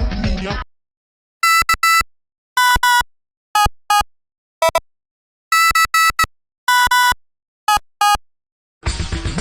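Song music cuts off, then short electronic beeps at several different pitches sound in quick clusters of one to four, separated by silence. The music starts again near the end.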